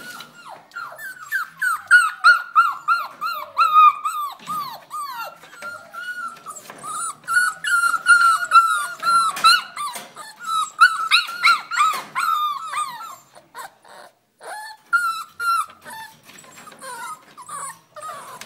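Puppies almost six weeks old whining and yelping in rapid, high-pitched cries, many overlapping, thinning out after about thirteen seconds.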